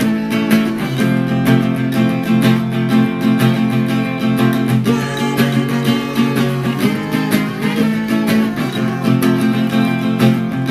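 Music led by a strummed acoustic guitar, with frequent short strokes that run steadily through.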